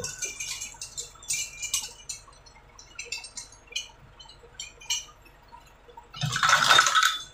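Metal chain and shackles clinking and rattling on a trawler's deck fittings, with a low steady hum of the boat's engine underneath. About six seconds in comes a loud rush of noise lasting about a second.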